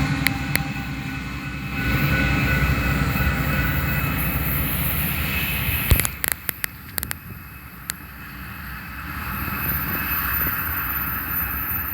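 BNSF coal train cars rolling past with a steady rumble of steel wheels on rail. About six seconds in, a few sharp clacks mark the last wheels crossing and the rumble falls away.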